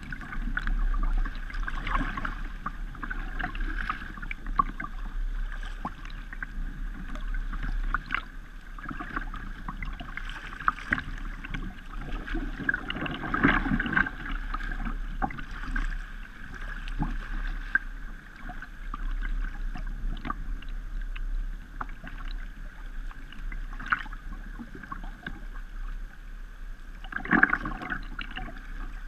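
Choppy river water slapping and gurgling against a kayak's bow as it moves, with irregular splashes of water and paddle strokes; it swells louder about halfway through and again near the end.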